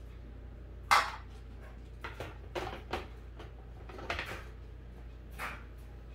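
Blender jar handled and set down onto its base on the counter: one sharp knock about a second in, then several lighter clunks and clatters. The blender motor is not running.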